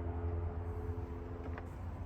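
Steady low mechanical hum with a few faint steady tones above it, and a light click about one and a half seconds in.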